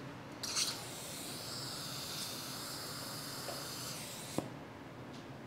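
Dental contra-angle handpiece running at the implant site with a steady hiss for about four seconds, then cutting off with a brief click.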